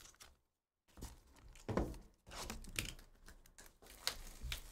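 Crinkling and rustling of foil trading-card pack wrappers and a plastic card sleeve being handled, with a few soft knocks of packs and boxes set on the table.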